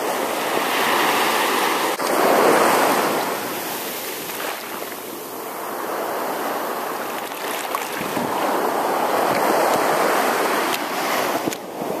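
Small bay waves washing in and out over the shallow shoreline around the feet, the wash swelling and easing twice.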